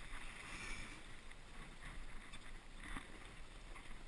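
Faint water lapping and slapping against the hull of a drifting fishing boat, with low wind rumble and a light knock about three seconds in.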